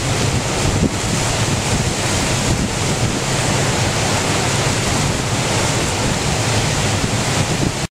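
Heavy storm surf raised by Hurricane Sandy, breaking in a steady rush, with strong wind buffeting the microphone.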